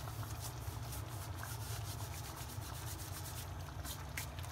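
Dried fenugreek leaves (kasuri methi) crushed and rubbed between the palms, a dry rustling rub, over a steady low hum.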